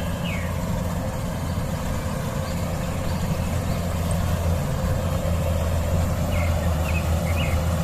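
Rice combine harvester engine running steadily, a low, even drone.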